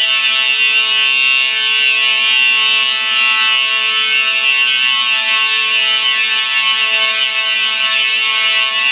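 Several fire alarm horns sounding together in loud, continuous steady tones with no pauses, during an alarm test of a Simplex 4100U fire alarm system.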